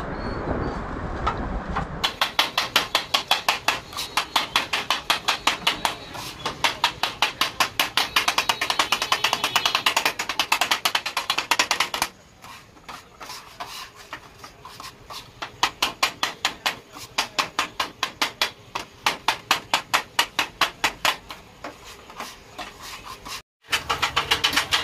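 Metal spatula rapidly chopping and tossing chicken pieces on a flat steel griddle: a fast, even clatter of about four to five metal strikes a second, starting about two seconds in and dropping back for a short stretch midway.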